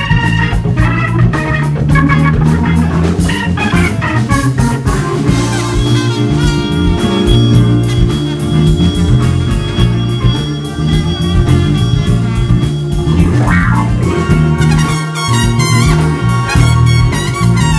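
Live jazz-blues band playing: a Hammond A-100 organ over electric bass and drum kit.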